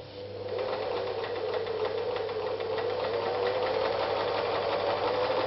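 Privileg Super Nutzstich 314 electric sewing machine, with an oscillating vertical shuttle, sewing a straight stitch at stitch length 5. It starts up just after the beginning, comes up to speed within about half a second and then runs steadily.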